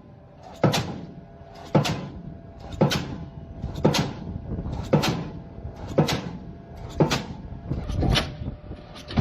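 A series of sharp knocks or bangs, about one a second and evenly spaced, each with a short ringing tail.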